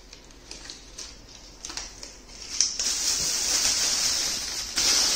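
Clear plastic wrapping crinkling and rustling as it is handled on a hoverboard's wheel. Light rustles and clicks at first, then steady, loud crinkling from about three seconds in.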